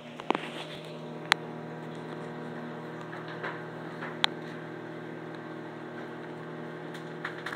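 Samsung over-the-range microwave oven starting up with a click and running with a steady hum while it heats toothpaste slime. A couple of sharp pops, about a second in and again about four seconds in, come from the mixture popping as it heats.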